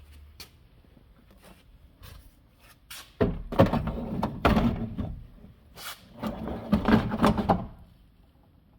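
Clattering and knocking of hard objects being handled, in two bouts of about two seconds each, the first starting about three seconds in and the second about six seconds in.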